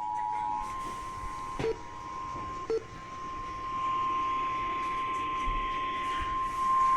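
Emergency alert attention tone: a steady, unbroken high beep held without a break, signalling that a new weather warning is about to be read. A lower two-note tone stops within the first second, and there are two short clicks in the first few seconds.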